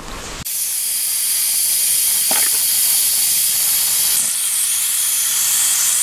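Afghan kazan, a cast pressure-cooker cauldron, letting off steam through its pressure-release valve: a loud, steady hiss that starts suddenly about half a second in.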